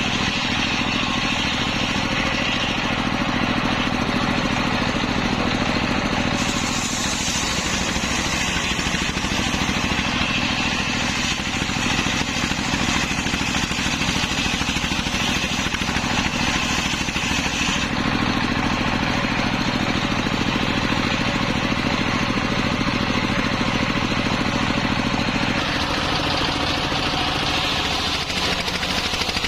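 Engine-driven homemade circular saw running steadily, its engine note and the saw's noise continuous, with the sound shifting abruptly a few times.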